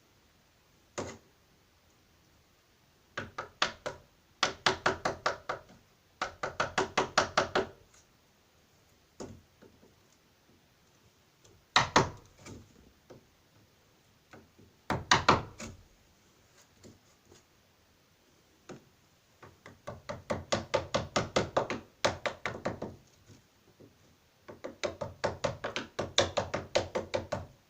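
Hammer tapping a chisel into wood in quick bursts of about eight light taps a second, with a few single harder blows between, shaving a recess so the deadlock sits flush.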